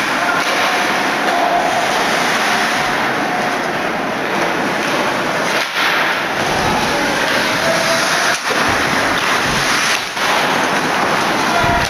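Hockey crowd cheering and shouting, a loud dense din of many voices with a few brief dips.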